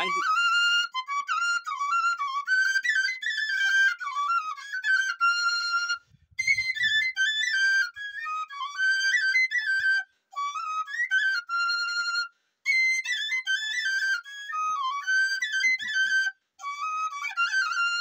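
Handmade bamboo bansuri (murali) flute played solo: a stepwise melody in five phrases, separated by short breath pauses, with long held notes at the ends of several phrases.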